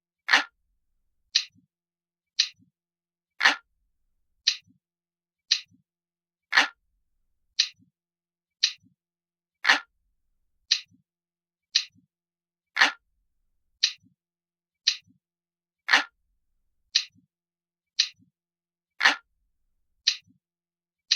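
Clock ticking steadily at about one tick a second, every third tick louder and fuller than the two between.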